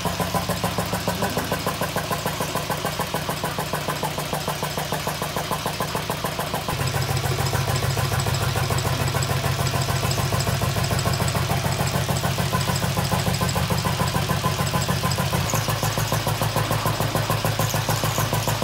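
Single-cylinder Lister stationary diesel engine running steadily with a regular beat, belt-driving a borehole pump head. The sound gets louder about seven seconds in.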